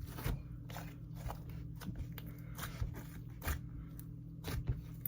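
Hands kneading slime mixed with soft clay, giving irregular small crackles and pops over a steady low hum.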